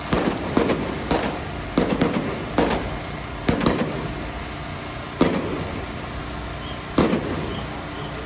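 Firecrackers going off one at a time at irregular intervals, about ten sharp bangs each with a short echoing tail, coming thickly in the first few seconds and then only twice more. A steady low rumble runs underneath.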